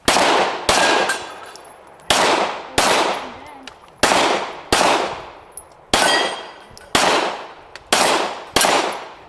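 Pistol shots in an action pistol course of fire: ten loud shots, mostly in quick pairs about three quarters of a second apart, each with a short echoing tail.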